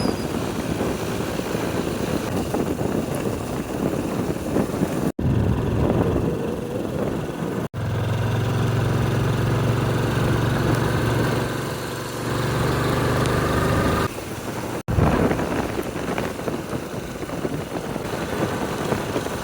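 Vehicle engine and road noise while driving, a steady hum with a low drone that holds for several seconds in the middle. It is broken by three sudden cuts between clips.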